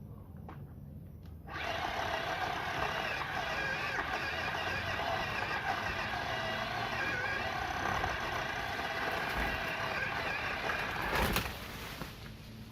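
Worx WG323 20V cordless pole saw's electric motor and chain running with a steady whine, starting about a second and a half in. A sharp crack sounds near the end as the whine stops.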